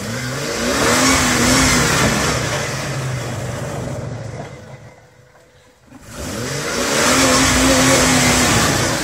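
Off-road rock crawler's engine revving hard in two long bursts, each rising in pitch and then held, with a dip back toward idle about halfway through.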